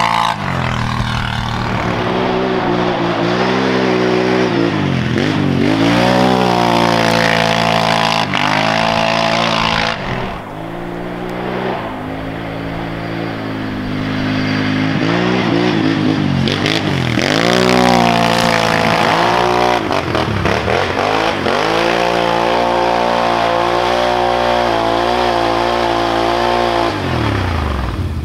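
2015 Can-Am Renegade 1000's V-twin engine barking through a dual Two Brothers exhaust, revving hard and dropping back again and again under full-throttle bursts. It eases to a lower, quieter run about ten seconds in, then climbs again.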